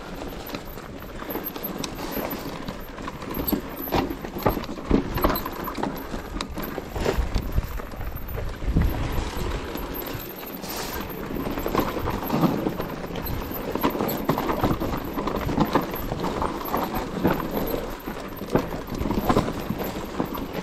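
Mountain bike rattling and clattering over rough, rocky trail on a descent, a dense run of irregular knocks and crunches.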